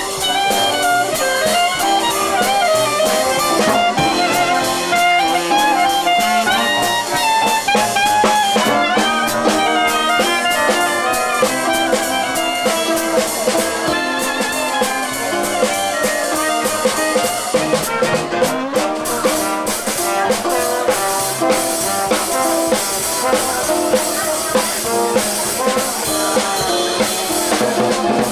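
Live jazz band playing: a clarinet carries the melody over a drum kit. The drums come more to the fore in the second half.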